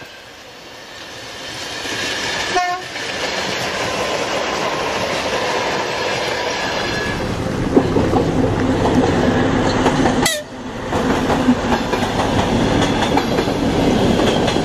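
Train running on the rails with its horn sounding, growing louder over the first two seconds, with heavier low rumbling and clacking from about halfway. The sound cuts out sharply and briefly twice, about three seconds in and near ten seconds.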